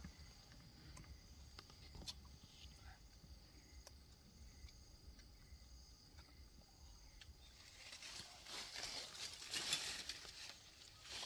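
Faint outdoor quiet with a few light clicks, then leafy branches rustling for a few seconds near the end as a bush is pushed through and handled by hand.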